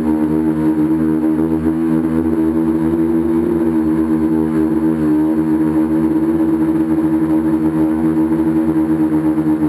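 A tricopter's electric motors and propellers humming steadily, heard close up from the camera on its frame, the pitch wavering slightly as the throttle changes.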